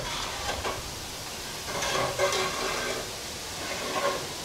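Lumber knocking and rubbing against the shed's wooden framing as an overhang board is hoisted and worked into place, a few irregular clunks and scrapes over a steady hiss.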